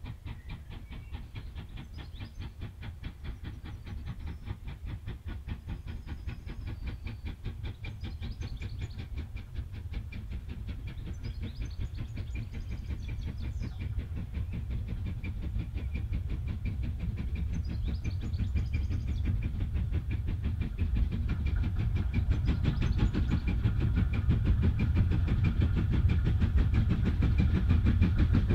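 Two steam locomotives double-heading a passenger train, working under steam with a rapid, steady beat of exhaust chuffs. It grows steadily louder as the train approaches.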